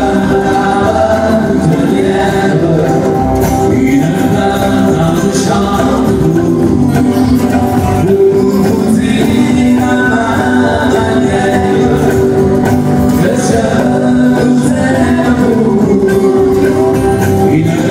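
Live country music: men singing over strummed acoustic guitars, amplified through the stage sound system.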